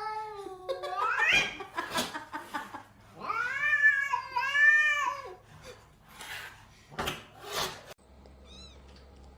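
A cat yowling in two long drawn-out calls, the first rising in pitch and the second longer and wavering, followed by a couple of sharp knocks.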